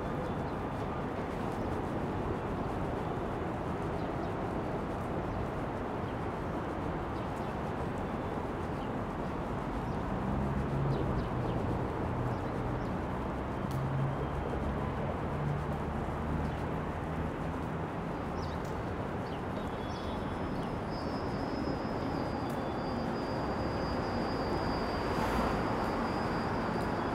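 Steady city road traffic running, with a heavy vehicle's low engine hum swelling and fading in the middle. A thin high-pitched whine comes in near the end.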